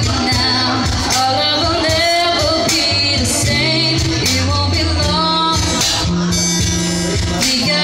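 A band playing with a singer: held bass notes under regular drum and cymbal hits, with a wavering vocal line on top.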